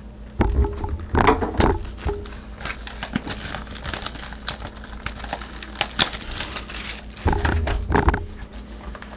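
Plastic shrink-wrap crinkling and tearing as a sealed trading-card hobby box is unwrapped and opened, with many small crackles. Two louder stretches of handling and bumping of the cardboard box, about half a second in and again about seven seconds in.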